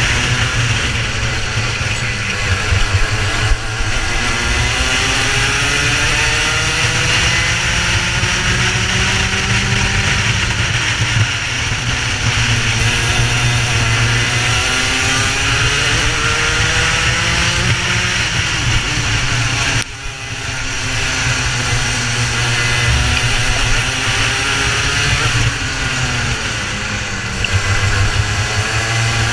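Racing kart engine at full race speed, its pitch rising and falling over and over as it is driven hard and then lifted, with a brief sharp drop in level about twenty seconds in.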